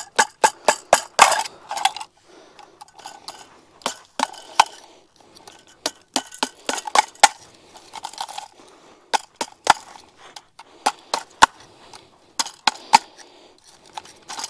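Irregular sharp knocks and clinks, some in quick runs: a chunk of ice being broken up by hand, the pieces clattering together.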